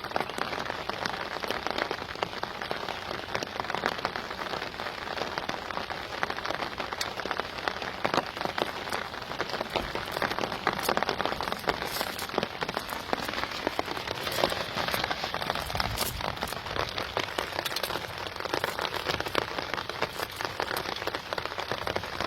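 Steady rain falling, a constant patter of many small drops.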